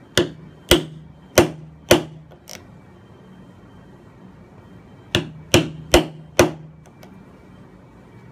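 Hammer striking the handle of a Japanese chisel held upright in a hardwood joint, chopping into the wood: four sharp blows about half a second apart and a lighter fifth, a pause, then four more blows.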